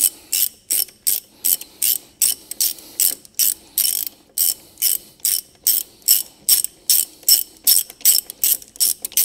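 Hand ratchet clicking in quick, even strokes, about four a second, as it winds out the loosened driveshaft centre bolt of a Volvo V50 front hub.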